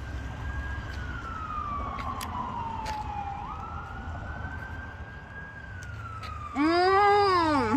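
Siren wailing: one tone rising, holding high, then slowly falling, starting its climb again about three and a half seconds in, over a steady low rumble.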